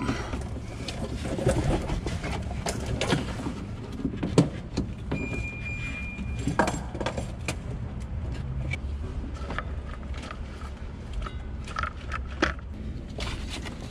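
Irregular clicks, taps and rustling of a new hydraulic clutch line and its fittings being worked up through the underside of a truck by hand, knocking against the chassis parts around it. A brief thin high tone sounds for about a second around the middle.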